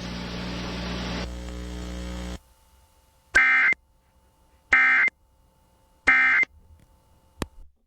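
EAS alert tones on an FM radio broadcast. About two seconds of steady hiss with a hum follow the warning's voice message. Then come three short buzzy bursts of digital data tones, about 1.4 s apart: the End of Message (NNNN) bursts that close an Emergency Alert System warning.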